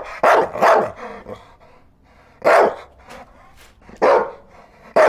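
A dog barking: a quick pair of barks early on, single barks at about two and a half and four seconds in, and a last bark cut off abruptly at the very end.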